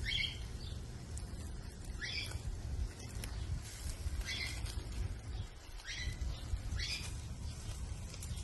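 A bird calling outdoors in short chirps, five in all, spaced a second or two apart, over a steady low rumble.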